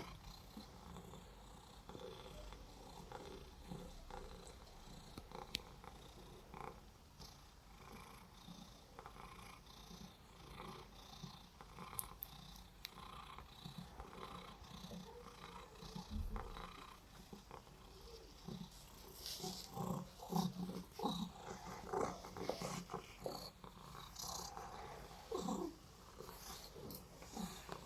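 Domestic cat purring quietly, getting louder and more uneven about two-thirds of the way through.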